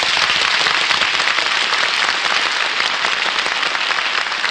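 Radio studio audience applauding steadily after the star is introduced.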